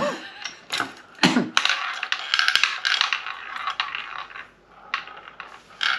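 Ball spun in a tabletop shot-glass drinking roulette wheel, rattling continuously as it runs around the track and dying away about four and a half seconds in, with a sharp click near the end.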